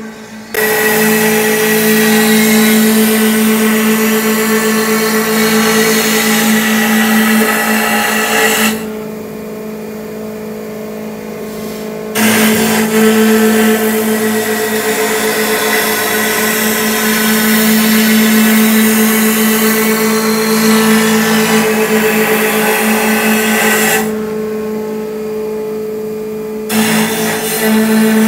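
CNC milling machine's 3/4-inch carbide end mill roughing out a mahogany pattern, a steady pitched spindle hum under a loud hiss of wood being cut. The hiss drops away for a few seconds twice, about a third of the way in and again near the end, while the spindle keeps humming.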